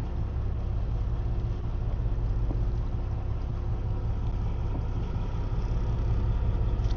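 Fishing boat's engine running steadily, heard on board as a low, even rumble with a faint steady hum above it.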